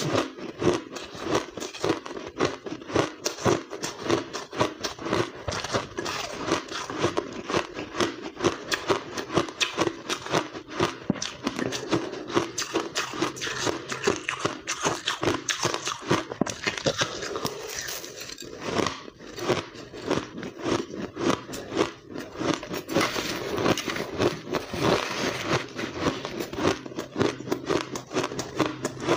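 Close-up crunching of finely blended white ice being bitten and chewed, a dense run of sharp crunches with no pause.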